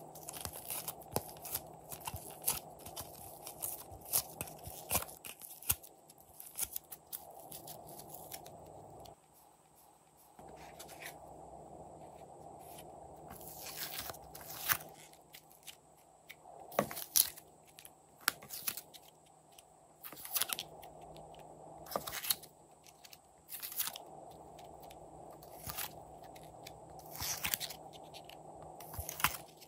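Plastic slime molds being handled as soft clay shapes are popped out of them and dropped onto slime. The sound is irregular sharp crackling clicks and crunches, some louder snaps in the second half, over a soft steady background.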